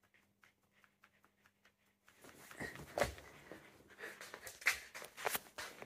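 Siberian husky pup scratching an itch and grooming himself: at first faint, rapid, even ticks, then from about two seconds in, irregular clicks and rustles of mouth and paws working at his fur.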